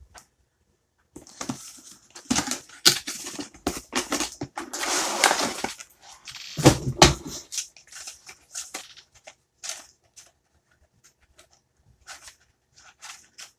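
Toy packaging being handled and opened: cardboard and plastic rustling, scraping and knocking in quick bursts. The handling thins out to scattered small clicks and taps in the second half.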